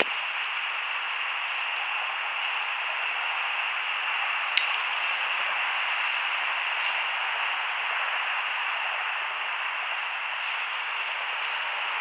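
Handheld propane torch burning with a steady hiss, with a sharp click about four and a half seconds in.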